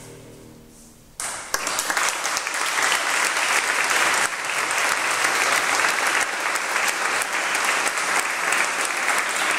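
The last chord of the piano and brass fades out, then about a second in the audience breaks into applause that keeps going steadily.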